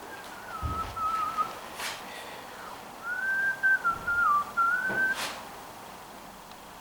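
A person whistling a wavering tune in two phrases, with two sharp cracks, one about two seconds in and one just after five seconds.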